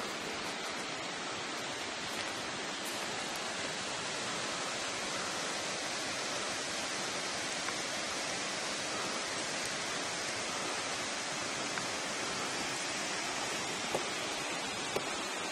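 Steady rush of water noise, even and unchanging, with a few faint ticks.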